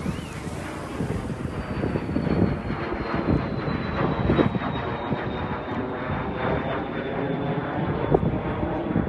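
Steady engine drone with a faint high whine that slowly falls in pitch.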